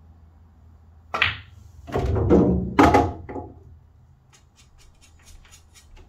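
A pool shot: the cue tip strikes the cue ball about a second in, then billiard balls knock and rumble for a second or so, with another sharp ball-on-ball clack near the three-second mark. Later comes a run of light ticks, about four or five a second.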